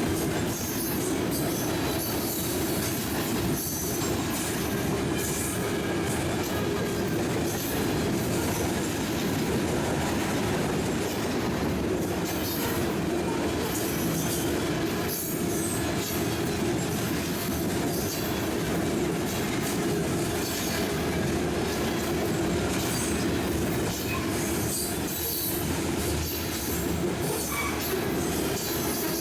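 A train's cars rolling steadily past on the rails.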